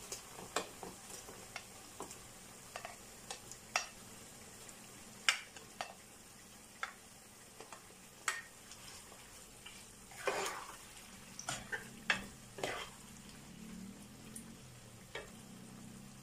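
Sliced tomatoes scraped off a plate with a plastic spoon into a pan of onions frying in oil: scattered clicks and knocks of the spoon against plate and pan over a faint, steady sizzle, with a few louder scrapes about ten and twelve seconds in.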